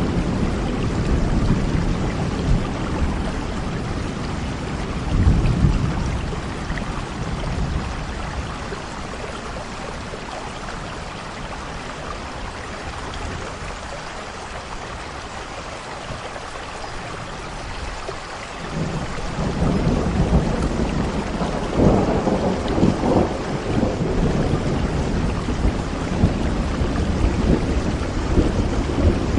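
Steady rain with rolling thunder. The rumble dies down in the middle, then swells again about two-thirds of the way through.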